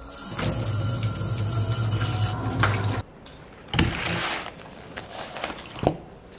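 Water running hard from a bathroom shower mixer tap for about three seconds, with a steady low hum under the rush, cutting off abruptly. Then the pages of a spiral-bound notebook are lifted and turned, with a few light taps.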